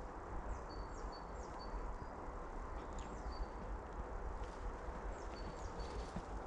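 A small bird singing in a few short phrases of quick falling chirps and thin level notes, over a steady low rumbling outdoor noise.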